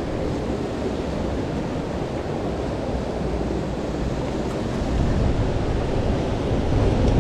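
Steady rushing noise of a rocky stream's flowing water, getting a little louder about five seconds in.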